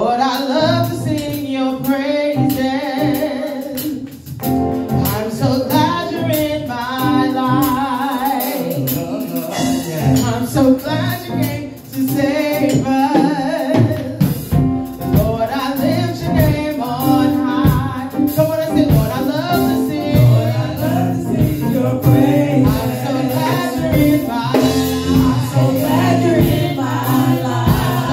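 Live gospel singing: a woman sings lead into a microphone, with other voices joining, backed by a keyboard and a drum kit.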